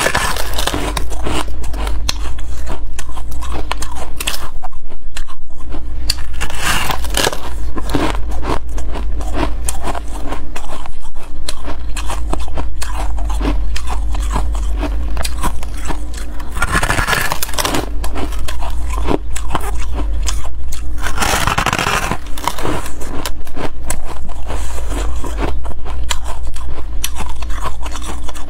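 Close-miked biting and chewing of fluffy white frost ice: dense, crackling crunches throughout, with a few louder bites along the way, over a steady low hum.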